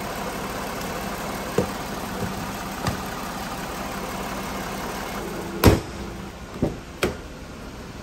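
Lexus RX350 3.5-litre V6 idling steadily with the air conditioning running, with a couple of small clicks at the engine bay. About two-thirds of the way through comes a loud slam, after which the engine sounds quieter, then two more sharp knocks.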